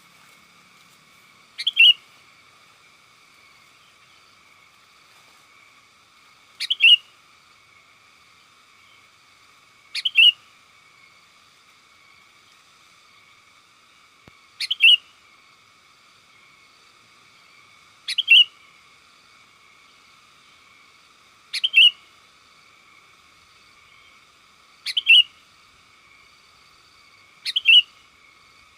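Sooty-headed bulbul giving short, sharp contact calls, each a quick double note, repeated eight times at intervals of about three to four seconds. This is the lively 'calling companions' call used to lure wild bulbuls. A steady faint high-pitched buzz runs underneath.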